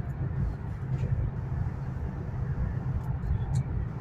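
High-speed bullet train cruising at about 300 km/h, heard inside the passenger carriage as a steady low rumble with a few faint ticks.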